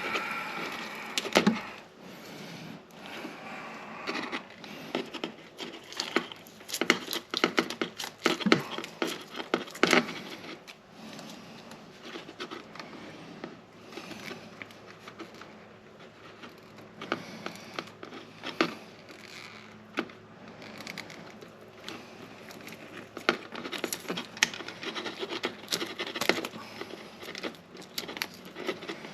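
Irregular clicks, taps and scrapes of hands working with electrical wiring and meter probes, coming every second or so.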